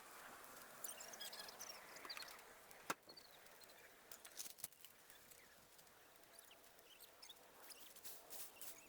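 Near silence: faint outdoor ambience with scattered small clicks and short high chirps, and one sharp click about three seconds in.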